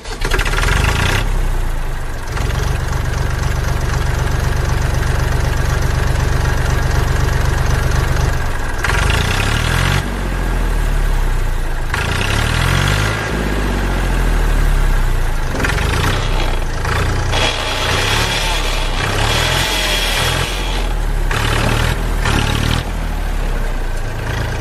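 A tractor engine running steadily at idle. From about nine seconds in it revs up and down over and over.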